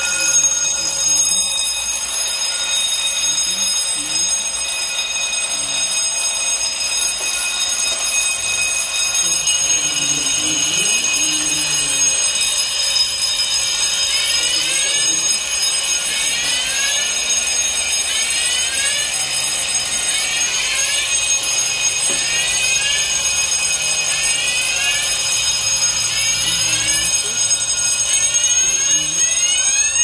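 Fire alarm sounders going off continuously with steady high-pitched tones, set off by testing a ceiling smoke detector with aerosol test smoke. From about halfway through, a second tone of short rising sweeps repeats over the steady one.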